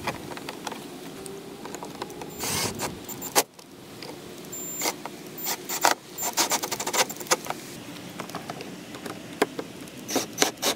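Cordless drill with a right-angle head driving screws that hold a plastic splash guard in a wheel well, in short runs. Between the runs the plastic guard clicks and knocks.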